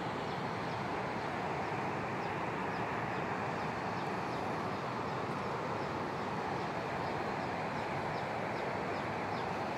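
A river in flood rushing steadily, swollen almost to the top of the bridge. A faint high chirp repeats at an even pace over the water noise.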